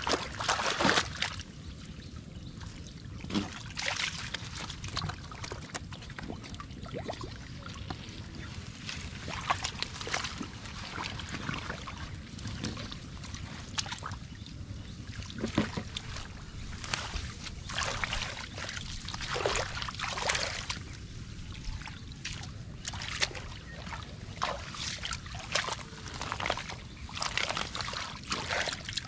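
Irregular splashing and sloshing of shallow muddy water as hands grope through it and through water plants, with a louder burst of splashing about a second in as a caught fish is lifted out.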